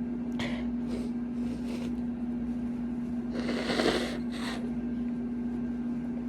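Loud air-conditioning unit humming steadily, with a few short sniffs in the first two seconds and a louder breathy burst through the nose and mouth about three and a half seconds in, followed by a smaller one.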